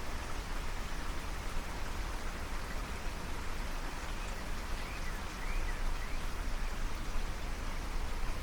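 Steady rain falling, an even hiss, with a few faint high chirps about halfway through.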